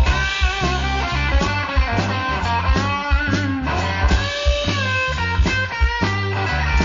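Instrumental blues-rock band playing: an electric guitar lead line with bent and wavering notes over a walking bass guitar and a steady drum beat.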